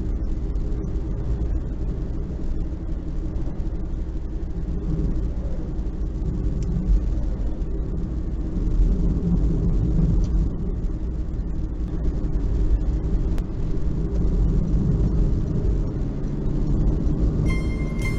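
Steady low rumble of a car driving at highway speed, engine and tyre noise. Music begins just before the end.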